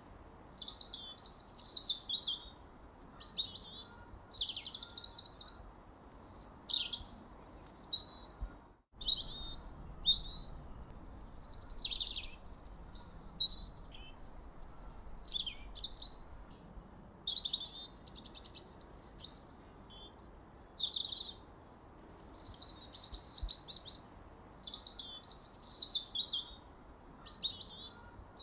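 Songbirds singing: short, quickly rising and falling high chirps and warbled phrases follow one another every second or two over a faint steady hiss, with one brief break about nine seconds in.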